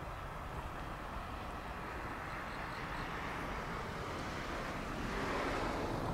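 Tobu Railway local electric multiple unit running along the track: a steady rumble of wheels on rails that grows louder near the end.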